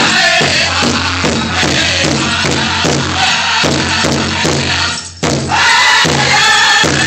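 Powwow drum group singing over a big drum struck in unison, about two beats a second. The drum and song drop out briefly about five seconds in, then come back in.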